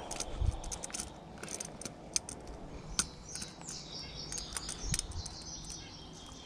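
Light metallic clicks and taps of fishing pliers on a lure's hooks while they are worked out of a bass's mouth, with a few soft thumps. A bird sings faintly from about three and a half seconds in.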